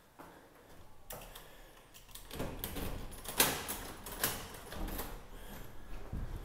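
A run of irregular clicks and rattles with a few sharper knocks, the loudest about three and a half seconds in: a key working a door lock and a room door being opened.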